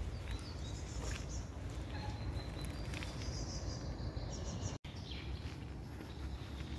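Small songbirds chirping and singing in the trees after rain, short high calls over a steady low outdoor rumble. The sound drops out for an instant about two-thirds of the way through.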